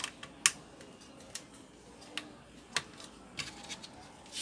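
Scattered sharp clicks and taps of a laptop's plastic and metal parts being handled, as the wireless antenna wire is tucked and the motherboard is pressed into the plastic base; the loudest click comes about half a second in.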